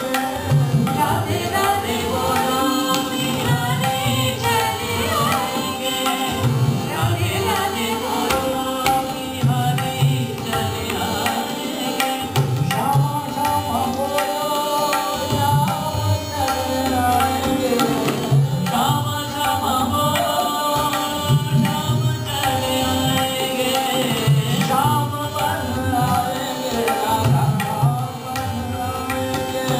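Hindustani classical vocal performance of a devotional song: a voice sings a slow, wavering melodic line to tabla accompaniment, the drum strokes pulsing regularly under a steady drone.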